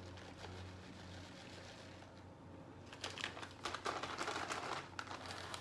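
Crinkling, rustling handling noise with a few sharp clicks, starting about three seconds in and lasting about two seconds, over a faint steady hum.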